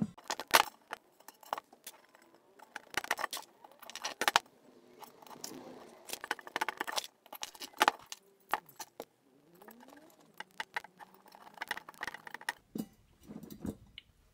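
Steel bicycle spokes clinking and jangling against the metal hub and rim as they are laced into a 144-spoke lowrider wheel, in sped-up footage: irregular clusters of light metallic clicks.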